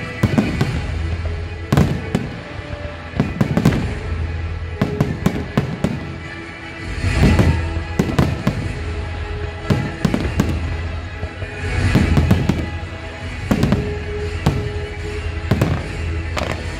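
Aerial fireworks going off in rapid succession: many sharp bangs and crackling pops, some in quick clusters, with music playing underneath.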